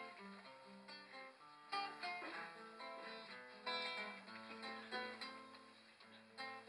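Solo acoustic guitar playing an instrumental passage between verses: picked notes with strummed chords every second or two.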